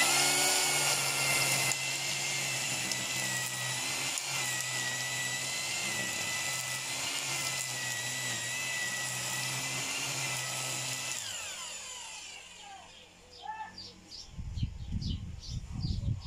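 Corded electric string trimmer running at a steady whine while cutting grass. About eleven seconds in it is switched off and spins down with a falling whine. Faint bird chirps and some low thuds follow near the end.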